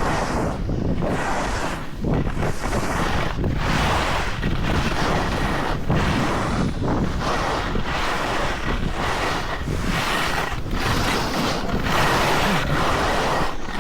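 Wind rushing over the microphone while sliding downhill on snow, with edges scraping across packed snow in swells about once a second as the rider turns.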